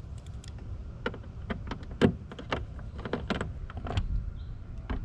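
Irregular clicks and taps of a hand driver turning a screw into a motorcycle's plastic tank cover.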